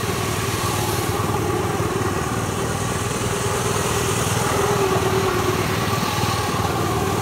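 Polaris Indy snowmobile engine running steadily as the sled drives around, growing a little louder as it passes close about halfway through.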